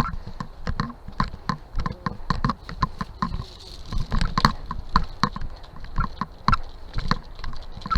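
Rapid, irregular clicks and knocks, several a second, over low thumps.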